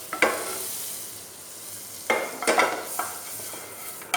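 Butter sizzling in a hot frying pan as a utensil spreads it around, with a few sharp knocks and scrapes of the utensil against the pan.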